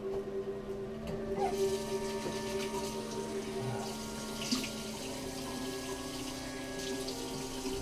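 Tap water running into a bathroom sink as someone washes at the basin, starting about a second and a half in. Under it, steady sustained tones of a music score.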